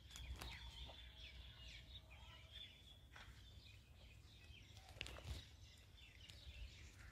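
Faint outdoor ambience of small birds chirping and twittering, over a low steady rumble, with a couple of sharp clicks about five seconds in.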